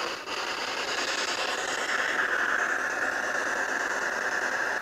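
Spirit box sweeping through radio stations: a steady rush of radio static hiss that cuts off suddenly at the end.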